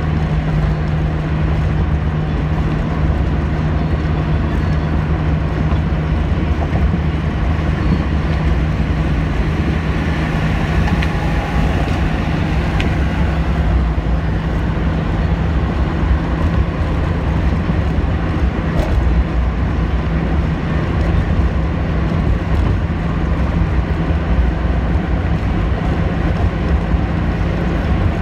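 Car cabin noise at highway speed: a steady low drone from the engine and the tyres on the road, with a constant low hum under it.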